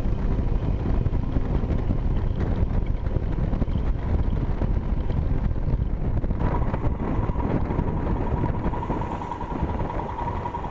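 Royal Enfield Himalayan's 411 cc single-cylinder engine running while riding, under a heavy low rush of wind on the microphone. A steady high tone joins about six seconds in, and the sound eases a little near the end as the bike slows.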